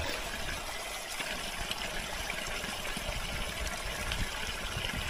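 Spring water trickling and flowing steadily.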